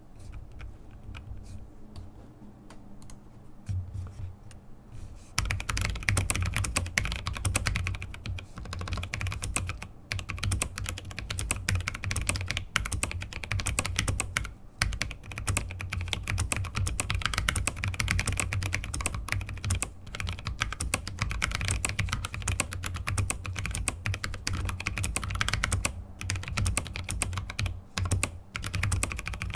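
Typing on a YMD84 mechanical keyboard with Kailh Speed Copper tactile switches on a brass plate in a frosted polycarbonate case. The spacebar, a single Kailh Box Jade clicky switch, gives a loud click at the end of each word. The typing starts about five seconds in and then runs as a steady, fast patter of key strokes.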